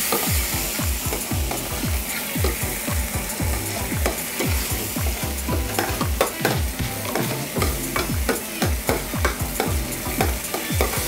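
Metal ladle stirring and scraping a sauce frying in a pan over a gas flame, with a steady sizzle and frequent clinks of the ladle against the pan.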